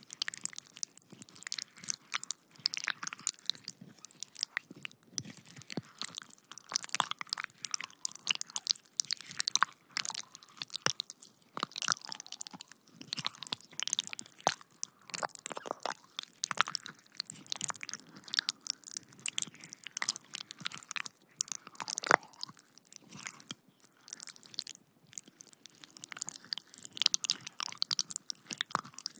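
Squelching, crackling wet-flesh sound effect of intestines being squeezed: dense, irregular wet clicks and crunches, like slimy tissue being squeezed and kneaded by hand. It is a sound designed for horror gore.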